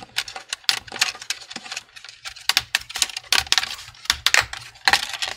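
Plastic screen bezel of an Acer Predator Helios 300 laptop being pried and pulled off the display lid by hand, its clips popping loose in a rapid, irregular run of sharp clicks and snaps.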